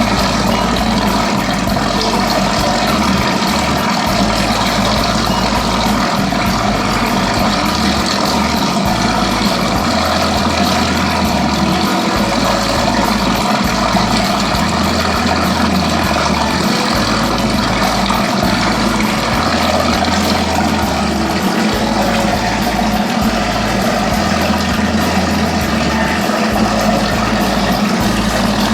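Motorized dough mixer for kerupuk crackers running steadily: a loud, even mechanical hum with no change in speed.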